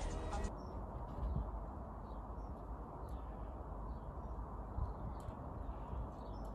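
Background music cuts off about half a second in. A steady outdoor background hiss follows, with a few faint bird chirps.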